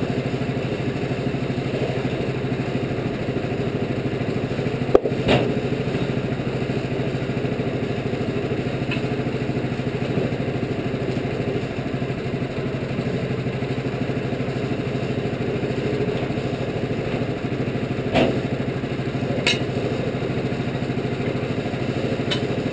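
Portable bandsaw mill's engine idling steadily, with a few separate knocks and clatters as a cedar log is rolled and positioned on the steel mill bed with a cant hook.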